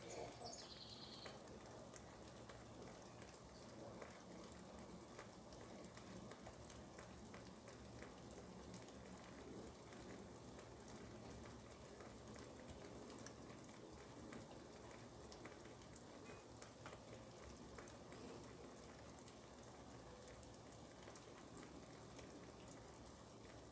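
Faint, steady rain falling outside, with a light patter of drops.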